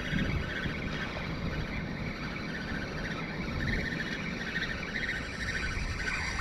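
Steady wind on the microphone and water lapping and slapping against a kayak on choppy open water.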